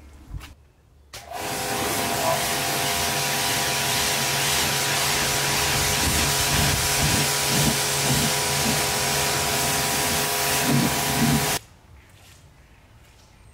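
Pressure washer running: a steady machine hum under the loud hiss of the water jet rinsing a car's bodywork. It starts suddenly about a second in and cuts off near the end.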